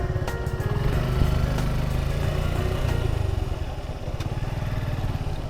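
Suzuki Gixxer SF single-cylinder motorcycle engine running while riding. It grows fuller about a second in and eases off a little after about three seconds.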